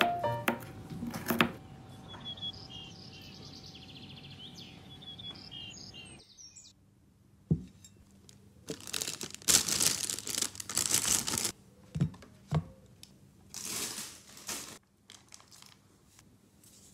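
A knife chopping a carrot on a cutting board, a few sharp knocks in the first second and a half. Later comes plastic crinkling in two long bursts, with a few knocks as bread slices are laid on a plate.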